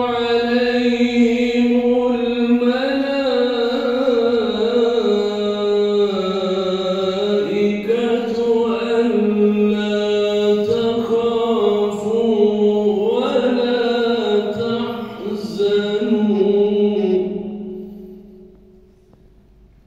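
A man reciting the Quran in long, melismatic melodic phrases into a microphone, holding and ornamenting each note. The phrase ends about 17 seconds in and its echo in the large hall dies away over the next two seconds.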